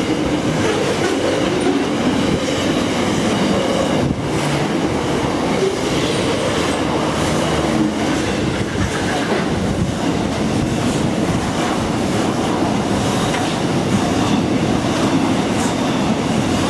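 Container freight train passing close by at speed: the steady, loud rumble and rattle of its wagons' wheels running on the rails.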